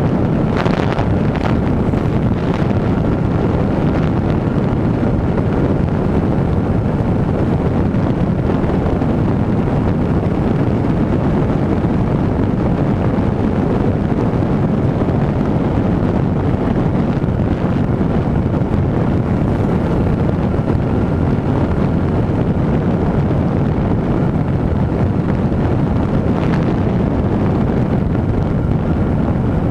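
Steady wind rush on a bike-mounted camera's microphone at cruising speed, with the Honda CB1000R's inline-four engine running under it.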